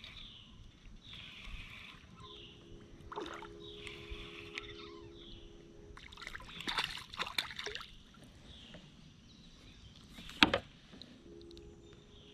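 Spinning reel being cranked in with a steady whir, a hooked fish splashing at the water's surface about halfway through, and one sharp knock about ten seconds in.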